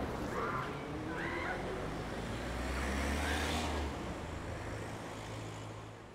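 City street ambience: a steady traffic rumble with a few faint distant voices, fading out over the last couple of seconds.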